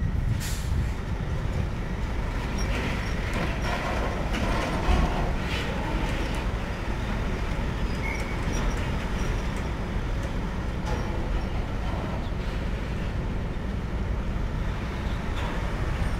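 Heavy truck's engine running at low speed as it drives across a ferry boarding bridge onto a docked car ferry, over a steady low rumble.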